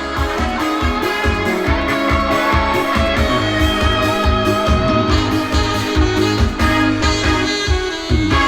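Instrumental trot music over a steady beat, with electric guitar prominent.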